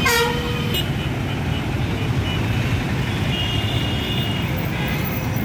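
Busy road traffic: passing motorbike and bus engines make a steady low rumble, with a short vehicle horn falling in pitch right at the start.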